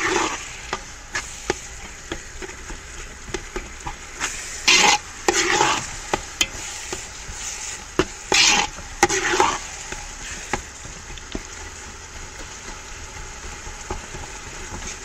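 A metal spatula stirring and scraping a thick tomato-onion masala in a large metal pot while the masala fries and sizzles. There are many small clicks of the spatula against the pot and a few louder scrapes about five and nine seconds in.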